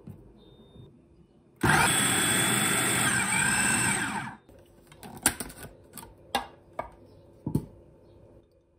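Kenwood food processor running for about two and a half seconds and then stopping, its blade cutting cold butter into flour for pie pastry. A few sharp clicks and knocks follow.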